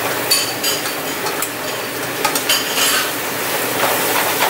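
King crab legs sizzling in garlic butter in a frying pan while being tossed and stirred with a metal spatula and tongs, with scattered clinks and scrapes of the utensils on the pan. The garlic is being cooked until it turns yellow.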